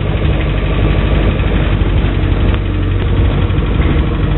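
A truck's engine running with a steady low rumble, heard from inside the canvas-covered cargo bed.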